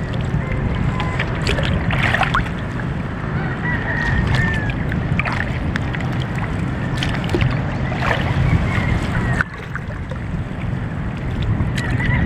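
Wind buffeting the microphone over choppy sea water, with water sloshing and splashing now and then. A few faint short chirps come and go.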